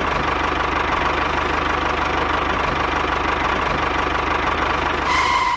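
Small engine of a DIY mini tractor running steadily at idle, with a fast, even knocking beat. A higher tone joins it just before it cuts off abruptly.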